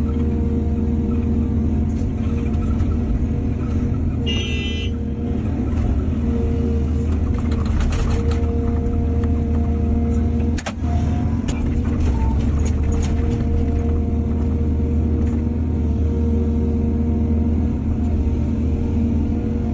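Excavator's diesel engine running steadily under load while loading soil onto trucks, with scattered knocks and clunks. A short, high tone sounds about four seconds in.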